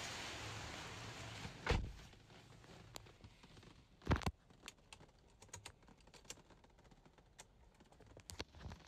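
Handling noise of a phone held by hand inside a car: a steady hiss that drops away after about two seconds, two dull thumps about two and four seconds in, then a scatter of small clicks and taps.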